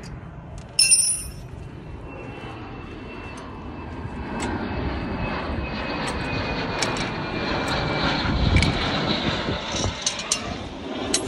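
A passing motor vehicle's engine and road noise, building up over several seconds, loudest about eight or nine seconds in, then easing off. About a second in there is a single sharp metallic clank with a brief ring, and light metal clicks from tools on the brake caliper come and go.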